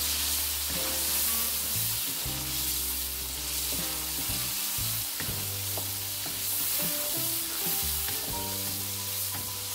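Tomato and egg curry sizzling and simmering in oil in a granite-coated wok as it cooks down, with a wooden spatula stirring through it. Steady background music plays under it.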